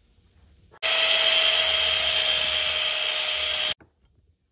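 Angle grinder running against metal, working the throttle cable bracket: a steady high whine over a hiss. It starts suddenly about a second in and cuts off abruptly about three seconds later.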